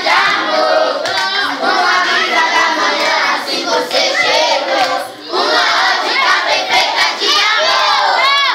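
A large group of children singing and shouting together loudly, many voices overlapping, with a brief lull about five seconds in.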